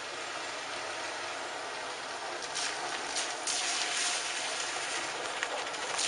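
Steady hiss of outdoor background noise, getting louder from about halfway through.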